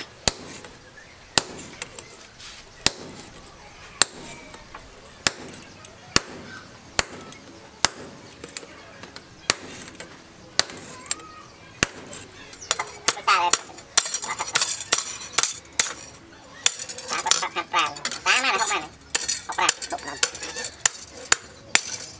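Hammer blows driving a hot-cut chisel through a red-hot steel chainsaw guide bar on an anvil: sharp metallic strikes about once a second, coming faster and louder with more ringing from about halfway through.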